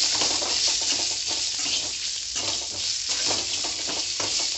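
Crushed garlic, mustard seeds and cumin sizzling in hot oil in a metal kadai, the tempering (tadka) for a chutney. A metal slotted spoon scrapes and stirs them against the pan, two or three strokes a second.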